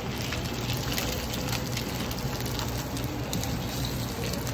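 Floured white fish frying in a pan of oil: a steady sizzle with many small pops and crackles of spattering oil, over a low steady hum.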